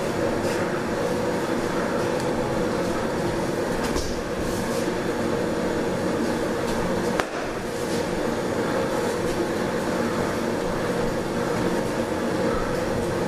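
Steady droning room noise, with a single sharp knock about seven seconds in.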